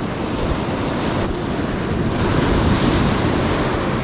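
Ocean surf breaking and washing up the sand in a steady rush, with wind buffeting the microphone. The wash swells and grows brighter about two to three seconds in.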